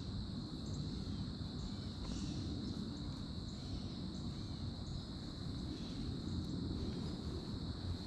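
Steady insect chorus of crickets or katydids, an even high drone, over a low rumble of movement and handling noise.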